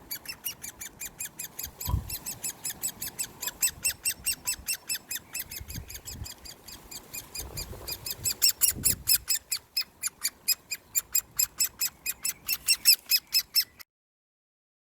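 Great spotted woodpecker chick begging while being hand fed: a fast, unbroken run of short, high, squeaky calls, several a second, that stops suddenly near the end.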